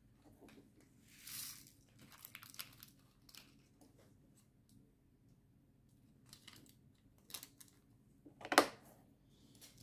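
Small plastic bags of diamond painting drills crinkling and rustling as they are handled, with light clicks from small clear plastic containers. One sharper click near the end is the loudest sound.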